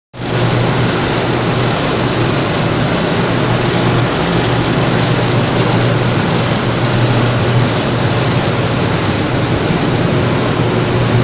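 Central-drum (CI) flexographic printing press running: a steady mechanical noise with a constant low hum underneath.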